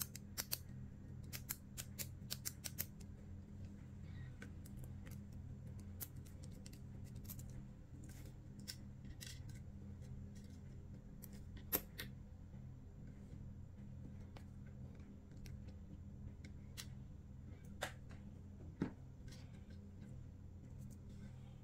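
Small sharp clicks and taps of a plastic retractable ballpoint pen being taken apart by hand, its tip cap, spring and refill handled. The clicks come in a quick cluster during the first three seconds, then singly, the loudest about halfway through. A steady low hum lies underneath.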